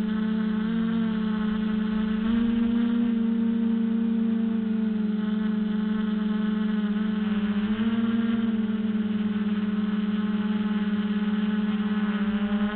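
Quadcopter's electric motors and propellers running in flight, a steady buzzing hum whose pitch shifts a little a few times, heard from the camera on board the quad.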